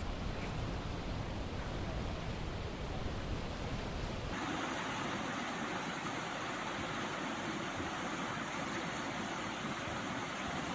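Rushing floodwater, a steady noise without pitch. The sound shifts abruptly about four seconds in, from one stretch of footage to another.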